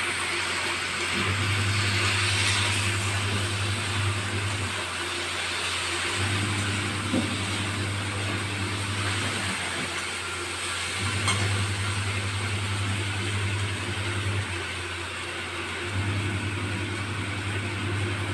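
Okra frying in a wok on a gas stove: a steady sizzle and hiss. Under it, a low hum switches on for about three seconds and off for about one and a half, four times over.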